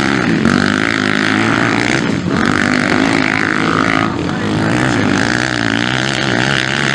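Motocross dirt bike engines revving hard, the pitch rising and falling as riders work the throttle through the track, with brief dips as the throttle is chopped.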